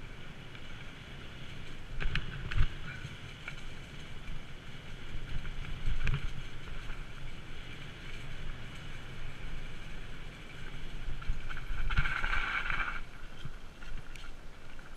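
Mountain bike rolling over a dirt and leaf-covered singletrack: a steady rumble from the tyres and frame, with the bike and camera mount knocking over bumps several times. About twelve seconds in, a brief higher-pitched buzz rises over the rumble.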